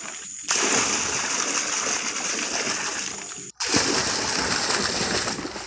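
Water poured from a bucket, a heavy stream splashing and churning into a pond. The pour goes steadily, with a brief break about half a second in and another for an instant past the middle.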